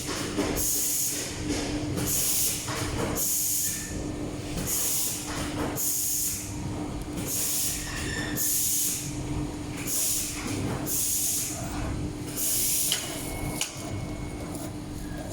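PCX-800A automatic COB strip light soldering machine running, with short hisses of air about once a second, typical of its pneumatic cylinders exhausting, over a steady low hum.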